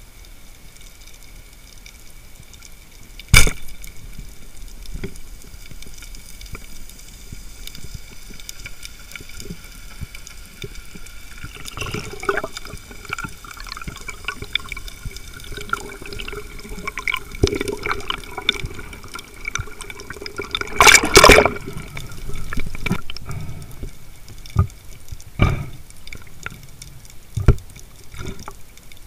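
Underwater sound of a rubber-band speargun firing: one sharp crack about three seconds in. Water noise follows, with scattered knocks and clicks and a loud double knock about two-thirds through.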